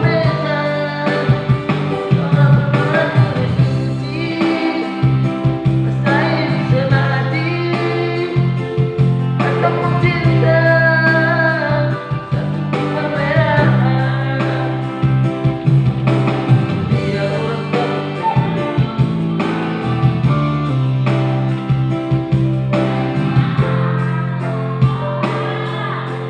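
A voice singing a song in long, sliding melodic phrases over instrumental accompaniment.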